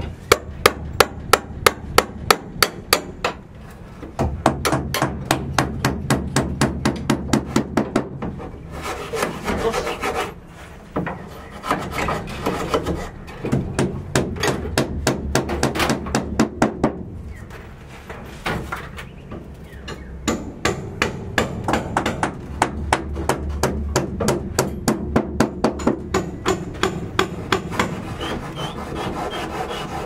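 Hammering on wooden formwork: quick, regular hammer strikes, about three a second, in runs broken by short pauses, over a low steady hum.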